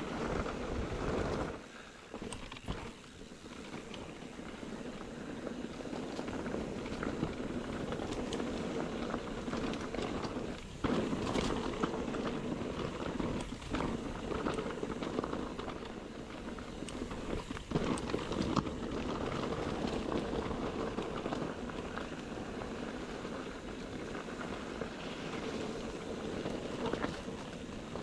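Mountain bike being ridden over a rough dirt trail: steady tyre and wind noise on the handlebar camera's microphone, with frequent sharp knocks and rattles as the bike hits bumps. The noise drops off briefly about two seconds in.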